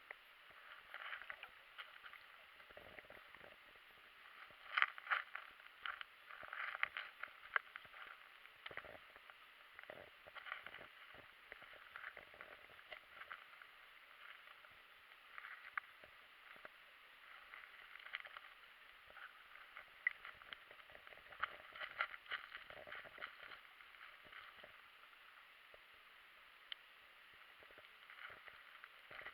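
Faint water splashing and gurgling, a run of small irregular splashes and crackles.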